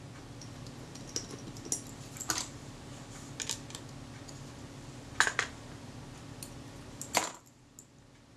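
Small metal parts and a screwdriver clicking and tapping against the metal body of a Kodak Retina IIIS camera as parts are fitted to its top deck: scattered sharp clicks, the loudest about five and seven seconds in. A low steady hum runs under them and stops about seven seconds in.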